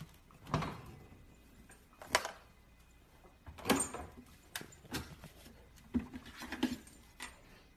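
A refrigerator door is pulled open, then a husky puppy clambers into the fridge, making a series of irregular knocks and bumps against the plastic shelves and drawers.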